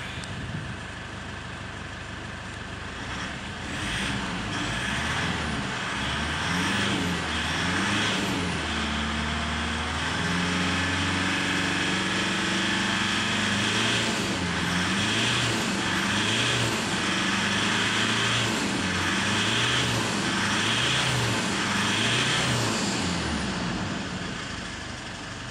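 Mazda BT-50's 2.5-litre four-cylinder turbo diesel engine being revved up and down repeatedly from idle, with a rising and falling note over and over. It settles back to idle near the end.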